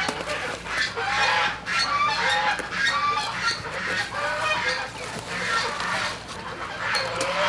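Domestic poultry clucking and calling, a string of short calls repeating a couple of times a second.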